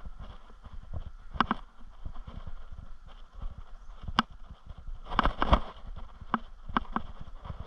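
Footsteps thudding unevenly, with a few sharp clicks or knocks, a cluster of them about five seconds in.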